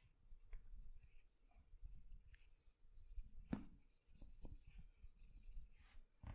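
Hands rubbing and kneading skin and hair during a massage: quiet, scratchy rubbing with small ticks, and one sharp click about three and a half seconds in.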